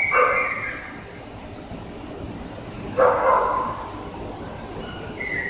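Boxer dog barking, two short sudden barks about three seconds apart, with a thin high whine leading into the first and another near the end.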